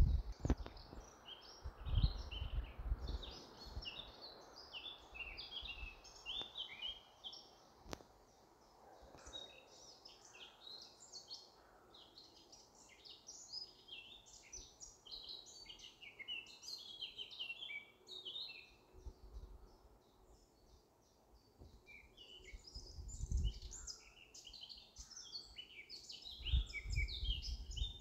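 Small birds chirping and singing without a break, a steady stream of short high chirps. Now and then there are dull low thumps, several of them near the end.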